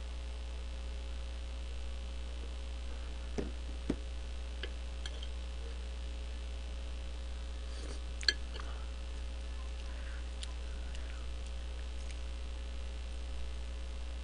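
Steady electrical mains hum in a small room, with a few faint clicks and knocks: two about three and a half to four seconds in and a sharper one a little past eight seconds.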